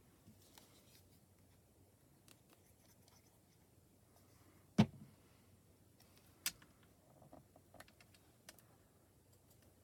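Faint handling sounds of small paper pieces and a plastic glue bottle on a glass craft mat: scattered light clicks, with one sharp tap about five seconds in and a lighter one a second and a half later.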